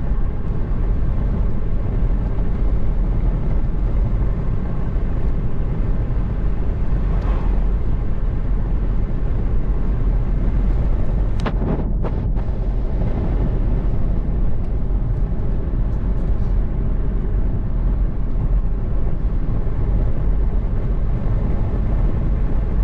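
Car driving along a road, heard from inside the cabin: a steady low rumble of engine and tyres, with a couple of short clicks just past the middle.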